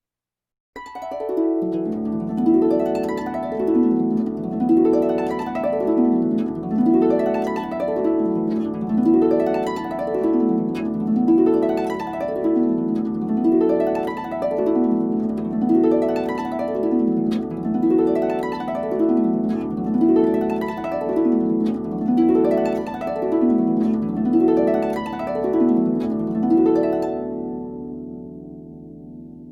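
Harp playing continuous arpeggios, the notes sweeping up and down in repeating waves about every two seconds. It starts about a second in and dies away near the end.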